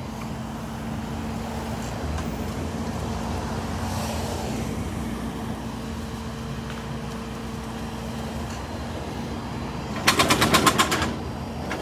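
Tow truck running with its hydraulics humming as the wheel lift is lowered by remote. The steady hum stops a little past halfway, and near the end comes a rapid clattering rattle lasting about a second.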